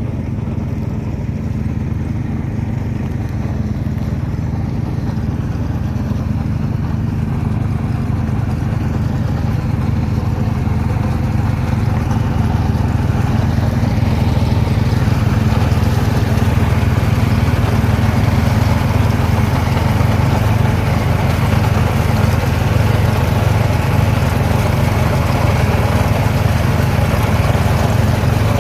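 Small engine running steadily with a low, even hum, growing gradually louder over the first half and then holding.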